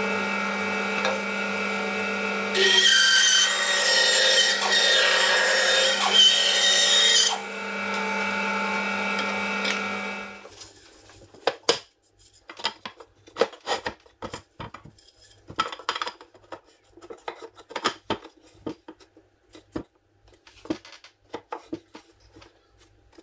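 Bandsaw running, with a louder stretch of about five seconds as it cuts through a wooden board, then switched off about ten seconds in. After that come scattered light wooden knocks and clicks as tongue-and-groove boards are fitted into a wooden hatch frame.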